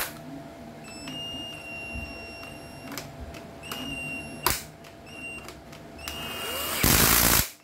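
Cordless impact driver run in several short trigger pulls, its motor giving a high whine, then hammering loudly for about half a second near the end. The battery is nearly flat.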